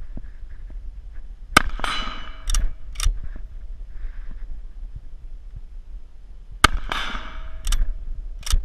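Two shots from a Swiss K31 straight-pull rifle, about five seconds apart. Each has a ringing tail and is followed by two quick sharp clacks as the bolt is pulled back and pushed forward to chamber the next round.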